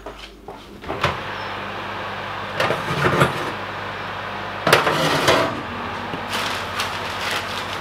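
Metal wire oven rack rattling and knocking as it is slid in the runners of an open electric oven, in several short clatters with the loudest about five seconds in. The oven's fan hums steadily behind.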